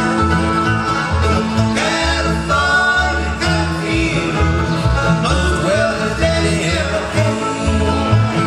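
Bluegrass band playing live: upright bass plucking a steady pulse of low notes under acoustic guitar, mandolin and banjo.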